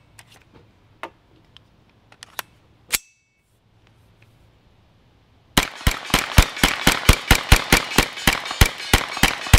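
Metallic clicks and a sharp clack of handling a Freedom Ordnance FX-9 9mm straight-blowback carbine. After a brief pause comes rapid semi-automatic fire from the same carbine, about twenty shots at roughly five a second, with a bright metallic ring on each.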